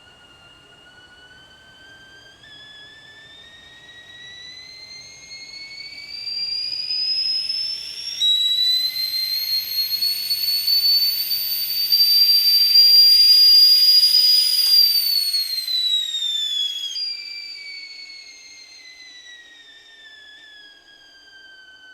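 Kettle whistling at the boil: one shrill whistle that climbs in pitch and loudness, jumps to a steadier, louder note about eight seconds in, then slides down in pitch and fades toward the end.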